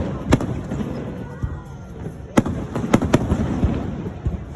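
Fireworks display: sharp booms of shells bursting, one just after the start and a quick cluster of three about two and a half to three seconds in, over continuous low rumbling and smaller crackles.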